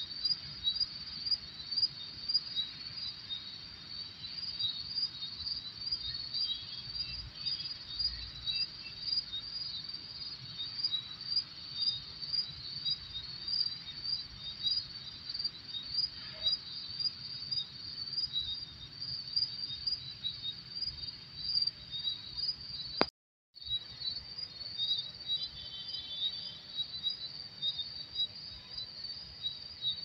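Crickets chirping steadily at night in a dense, rapid, high-pitched pulsing chorus. About three-quarters of the way through, the sound cuts out completely for under half a second with a click, then carries on.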